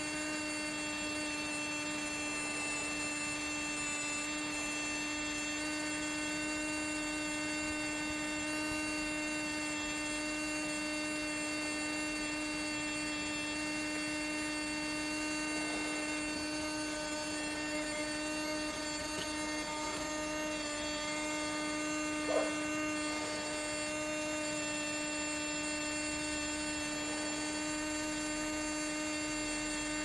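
Steady electrical hum of a homemade heat pump running, its compressor and cooling fan holding one unchanging pitch with a stack of higher overtones. A brief small click about 22 seconds in.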